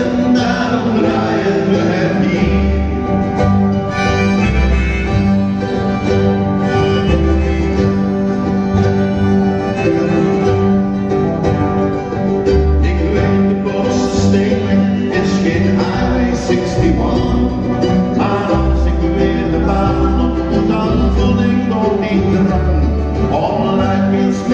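Live acoustic band playing a folk song: strummed acoustic guitars, keyboard and double bass, with deep bass notes coming every second or two.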